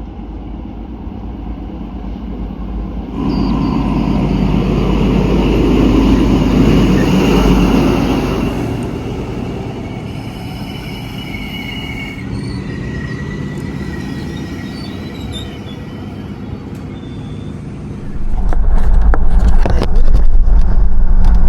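Vehicle noise: a steady low rumble that swells a few seconds in, with thin high squealing tones partway through, turning louder and crackly near the end.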